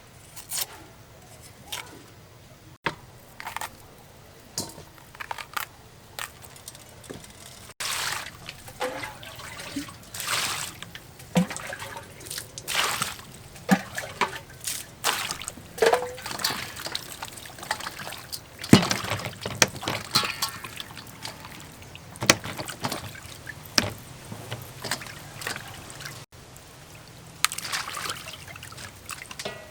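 Vegetables being washed by hand in water: irregular splashing, sloshing and trickling, with scattered sharp knocks and clatters.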